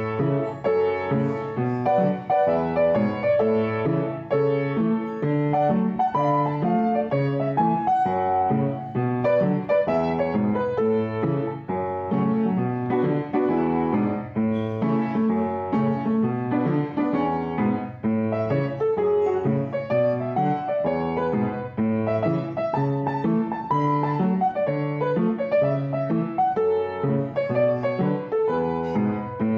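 Background piano music: a steady, unbroken run of notes.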